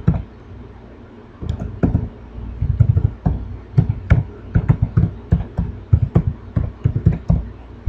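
Computer keyboard being typed on: an irregular run of key taps and clicks, starting about a second and a half in.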